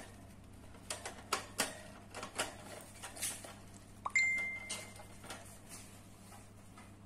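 Pet hamster gnawing to wear down its teeth: a string of sharp, irregular clicks. About four seconds in comes the loudest sound, a brief steady high tone lasting under a second.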